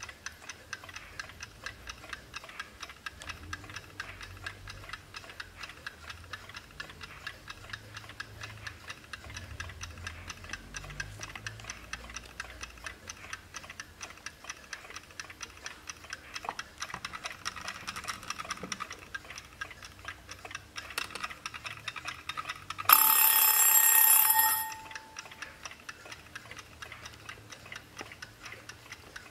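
Clockwork kitchen timer of a 1950s Junghans Max Bill ceramic wall clock ticking rapidly and evenly while its dial is turned by hand, then its bell rings loudly for under two seconds late on and dies away: the timer going off.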